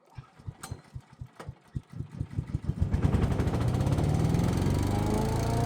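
Wood chipper/mulcher's small gas engine starting: separate firing beats come faster and faster for about three seconds, then it catches and speeds up to a steady run.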